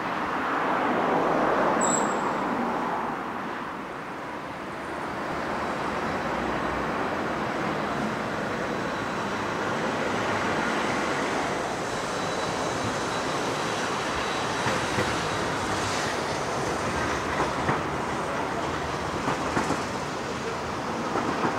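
Articulated low-floor streetcar rolling along street track among road traffic, with a steady rolling noise, a faint high whine in the middle and a few sharp clicks near the end. A car passes close by about a second in.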